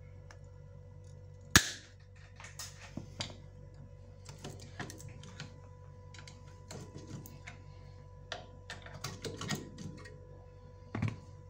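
Side cutters snip through a lead on an alternator's rectifier diode with one sharp snap about a second and a half in, cutting out the faulty diode. Scattered light metal clicks and knocks follow as the alternator is handled and turned by hand, with a faint steady hum underneath.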